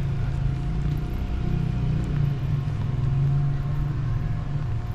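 Steady low rumble of city traffic, with a faint continuous hum above it.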